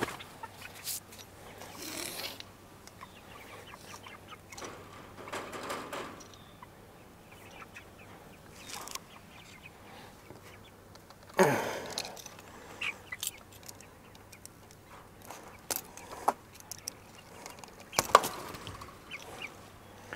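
Hens clucking and calling in a chicken tractor, in scattered short calls. The loudest, about halfway through, falls in pitch, and another strong call comes near the end. Light clicks of a garden hose and its fittings being handled are heard between the calls.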